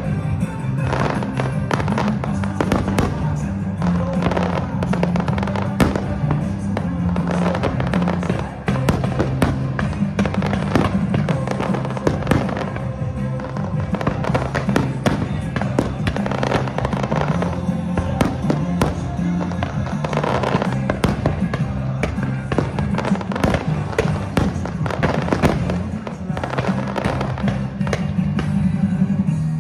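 Aerial fireworks shells bursting in rapid, continuous succession with crackling, over loud music played along with the pyromusical show.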